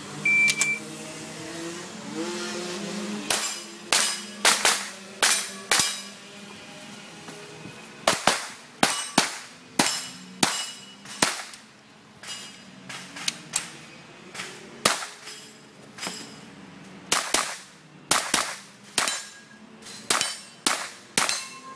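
A shot timer's short electronic start beep, then a long string of .22 rimfire rifle shots. The shots come in quick runs of several, about half a second apart, with short pauses between the runs.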